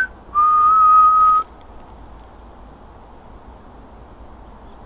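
A person whistles a single steady note about a second long, a call for a spirit to whistle back. Then only a faint, steady hiss remains.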